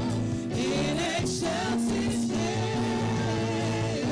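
A women's vocal group, a lead singer with three backing singers, singing a Christmas worship song over instrumental backing, with held notes that bend up and down.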